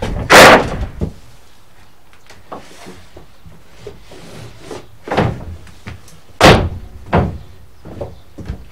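A 3/4-inch plywood subfloor sheet dropped flat onto the van's floor strips with a loud slam about half a second in, then a few heavy footsteps thudding on the loose sheet, the loudest about six and a half seconds in.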